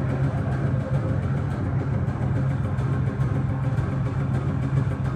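Steady low droning hum with a faint even rushing noise over it, unchanging throughout.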